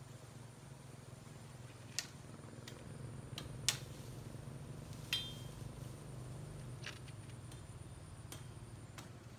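Scattered sharp snaps and clicks of leafy branches being broken and pulled from a wire fence, about six in all. One, about five seconds in, has a short metallic ring. A steady low hum sits underneath.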